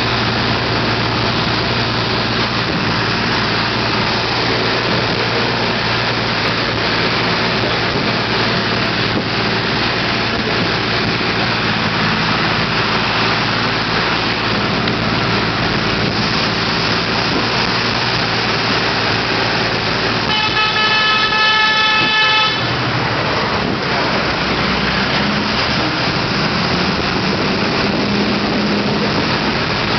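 Bus engine running steadily under a rushing haze of wind and road noise through an open window. About twenty seconds in, a horn sounds once, a single held tone for about two seconds, the loudest moment.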